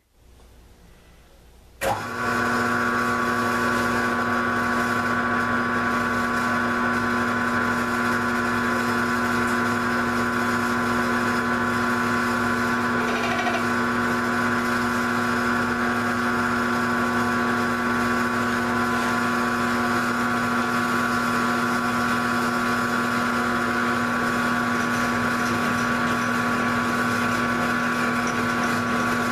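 Grizzly G0705 mill/drill switched on about two seconds in, its motor and spindle then running at a steady pitch with a constant hum and whine.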